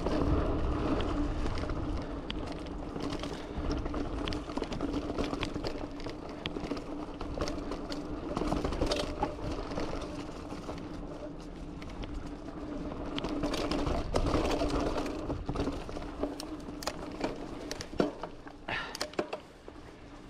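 Giant Fathom 2 hardtail mountain bike riding downhill on a dirt trail: tyres rolling with a steady rumble, sharp rattles and knocks from the bike over bumps, and a steady buzzing tone throughout.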